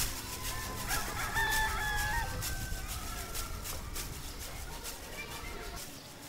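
A rooster crowing, one long call starting about a second in, over a low steady outdoor background.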